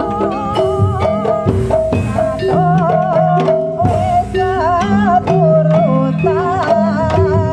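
Jaranan Buto accompaniment: a Javanese gamelan-style ensemble with drums and repeated ringing metal tones, and a melody line wavering in pitch over them.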